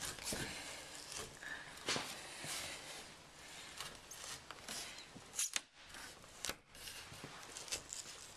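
Adhesive-backed tailgate trim strip being peeled away from the paint, with a plastic scraper worked along underneath it: an irregular crackling, tearing and scraping, with a few sharp clicks.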